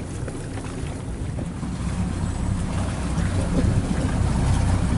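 Motorboat engine running with a steady low drone, getting louder from about halfway through, with wind buffeting the microphone.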